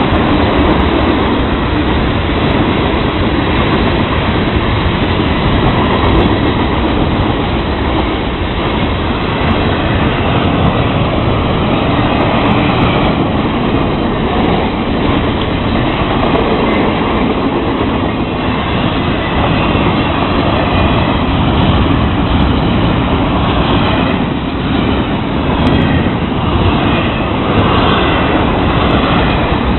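Florida East Coast Railway intermodal freight train's cars rolling past, carrying trailers and double-stacked containers on flatcars: a loud, steady noise of steel wheels on the rails.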